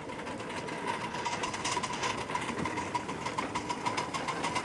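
A 5-inch gauge live-steam Double Fairlie locomotive running past, its exhaust beating in a fast, even chuffing rhythm, with a steady high tone underneath.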